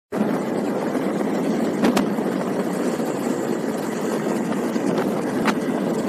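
Steady wind and engine noise from riding a motorbike along a road, the wind rushing over the microphone, with a couple of light clicks about two seconds in.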